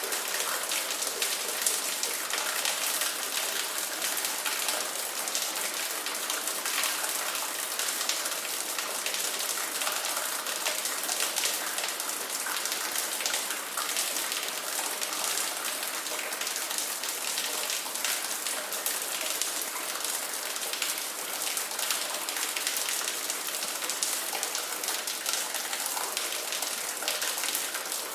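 Steady rain pattering on a surface, a dense even hiss of drops.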